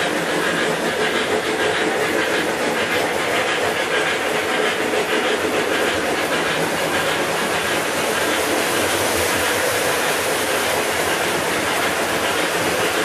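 Several O-gauge model trains running together around a three-rail layout, with a steady rumble and clatter of wheels on track and the hum of their motors.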